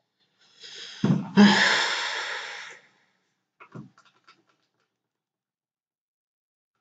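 A man's heavy breath: a quieter intake, then a loud exhale, voiced at first, that fades out over about a second and a half. A few faint clicks follow.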